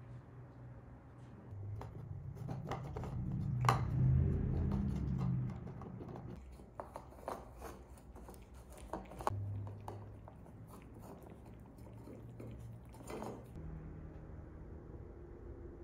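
A cat eating from a bowl: quick, irregular chewing and crunching clicks, busiest and loudest in the first half, over a faint low hum.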